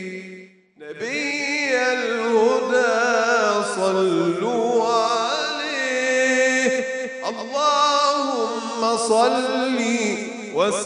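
A man singing an Islamic ibtihal, a devotional chant, solo into a microphone. He sings in long, ornamented phrases whose pitch wavers up and down, and breaks briefly for breath just under a second in.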